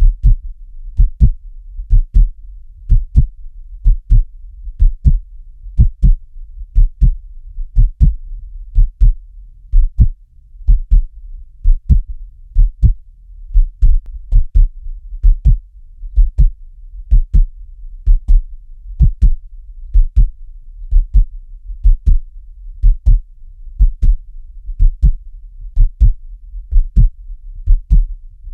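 A human heartbeat, steady and slow at about one beat a second. Each beat is a double low thump (lub-dub), over a faint steady low rumble.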